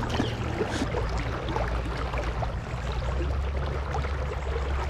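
Steady rush of shallow river water running over rocks, heard close by, with a low rumble under it.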